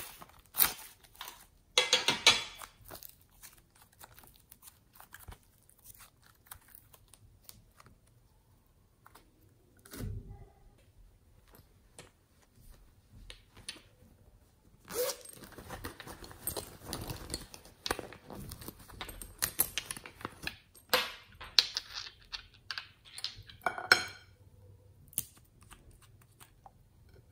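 Close-up hand-handling noises: sharp clicks, crinkling and rustling of plastic pieces being pulled from a mould and handled. A quiet stretch of several seconds comes partway through, followed by a dull knock and then a longer spell of dense rustling and clicking.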